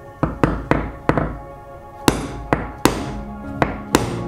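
A narrow chisel being struck with a mallet, about nine sharp, irregularly spaced taps, chopping out a micro dovetail socket in the end of a bog oak strip.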